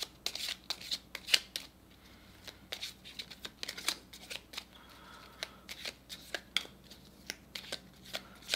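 A deck of oracle cards being hand-shuffled overhand, cards dropping from one hand into the other: a quick, irregular run of soft slaps and flicks.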